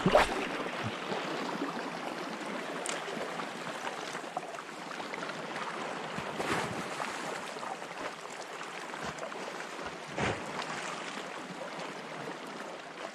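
Calm sea lapping against shore rocks: a steady wash of water noise. A few brief knocks cut through it, the sharpest right at the start.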